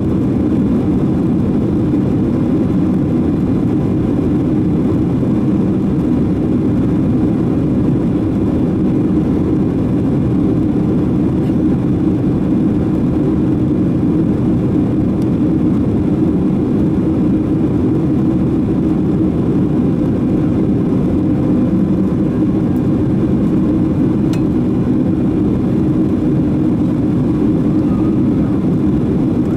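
Steady cabin roar of a Boeing 767-300 in flight, its jet engines and rushing airflow heard from a window seat over the wing. The drone is deep, with a few faint steady whining tones above it.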